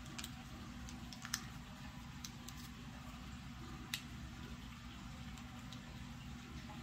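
A small piece of paper being folded by hand into a funnel: faint crinkling with a few sharp ticks, the loudest about a second and a half in and again about four seconds in, over a low steady hum.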